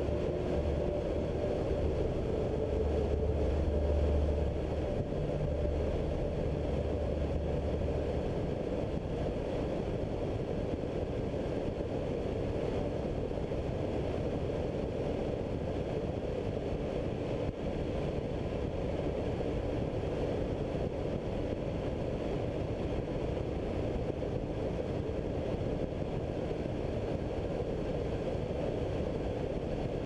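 Ultralight trike's engine and rear pusher propeller running steadily in cruise flight, a continuous drone mixed with wind rushing over the microphone.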